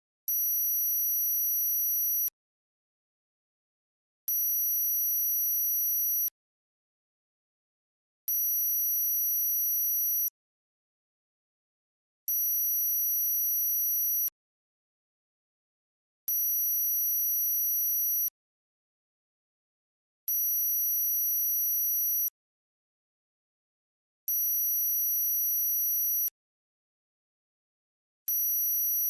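Synthesized high-pitched tone for tinnitus masking, pulsing on for about two seconds and off for about two seconds, with total silence between pulses. It sounds about eight times in steady, even alternation.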